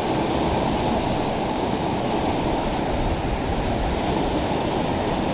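River rapids rushing: a steady, even noise of churning whitewater, heaviest in the low range.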